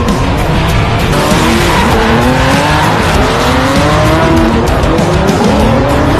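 Drift car sliding: the engine revving up and down over continuous tyre squeal and skidding, loud throughout.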